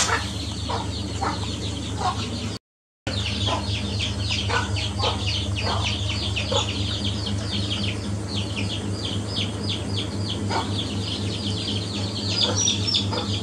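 Chickens clucking with a dense run of rapid high chirps, over a steady low hum. The sound drops out completely for a moment about three seconds in.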